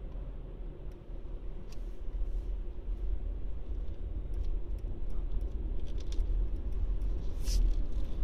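Car driving up a multi-storey car park ramp, heard from inside the cabin: a steady low rumble of engine and tyres, with scattered light clicks and a short high hiss near the end.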